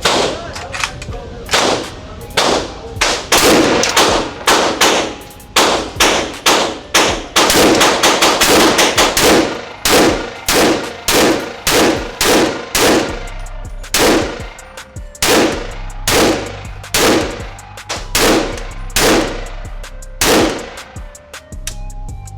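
AK-pattern Draco pistol fired semi-automatically in a long string of loud, sharp shots, about two a second, packed closer together in the middle, each with a short echo. The firing stops near the end.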